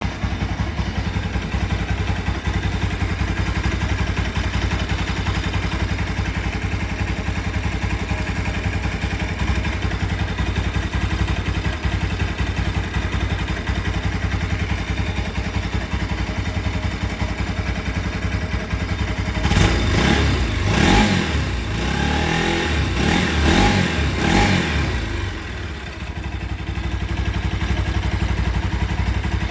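Bajaj Rouser NS 200's single-cylinder engine idling, then revved in a few short blips about twenty seconds in before settling back to idle; the owner is showing it for an unexplained strange engine noise.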